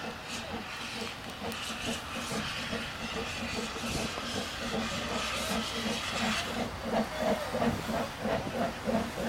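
Double Fairlie steam locomotive Merddin Emrys starting away from a stand. Steam hisses loudly from its open cylinder drain cocks, and its exhaust beats come in an even rhythm. The hiss dies away about six and a half seconds in, and the beats grow louder.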